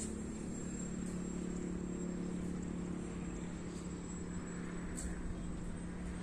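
Steady drone of an electric RC model plane's motor and propeller in flight, with a thin high whine above it.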